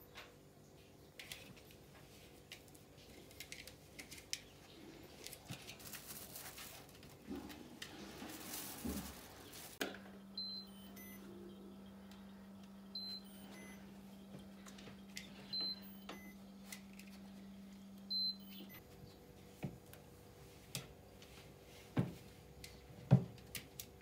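Short electronic beeps repeating four times, about two and a half seconds apart, over a steady low hum, starting about ten seconds in, from an open refrigerator's door-open alarm. Faint rustling and scattered knocks come before, with two sharper knocks near the end.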